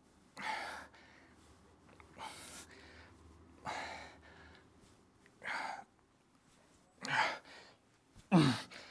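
A man breathing out hard in short, forceful puffs, about one every second and a half, in time with repetitions of seated dumbbell lateral raises. Near the end a puff turns into a short strained grunt that drops in pitch.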